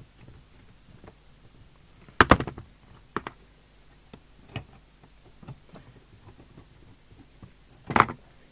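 Scattered light clicks and knocks of hands working on a CB radio's front panel and chassis, with two louder knocks, one about two seconds in and one near the end.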